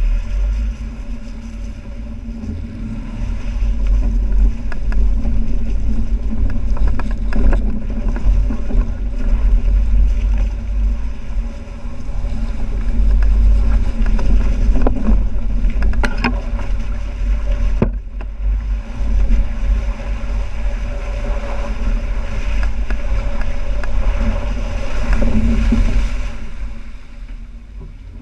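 The 3.6-litre V6 engine of a 2012 Jeep Wrangler Unlimited JK running as the Jeep drives through a creek, with water splashing around the tyres and a heavy low rumble. A few sharp knocks come in the middle, and the level rises and falls with the throttle.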